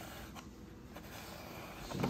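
Faint handling sounds: a black plastic cupcake tray turned by hand on a stone countertop, with a light click about half a second in and a louder dull sound starting near the end.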